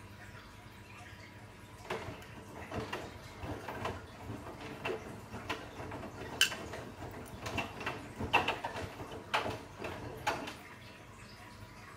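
Bosch Serie 8 front-loading washing machine in its wash cycle, the drum turning. Wet laundry tumbling gives irregular knocks and clicks for about eight seconds, starting about two seconds in.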